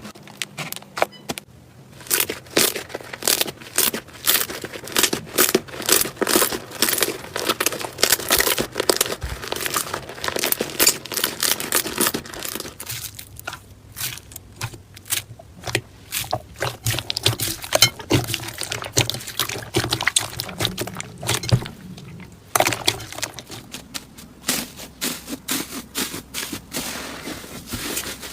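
Slime being squeezed and pressed by hands, making a dense run of crackling clicks and pops, with two short quieter lulls in the middle.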